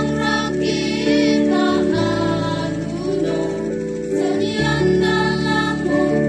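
Church choir of women and men singing a hymn together, holding long notes with vibrato. Beneath them, long low notes are held, each changing to a new pitch about every two and a half seconds.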